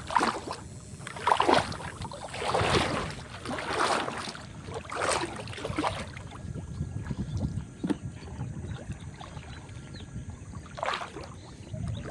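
Water splashing and sloshing in shallow water, in short bursts about once a second at first, then two more spaced further apart.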